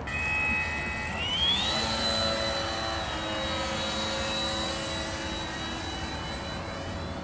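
Radio-controlled model airplane's small engine running, rising sharply in pitch about a second in as it is throttled up, then holding a steady high-pitched whine as the model flies past.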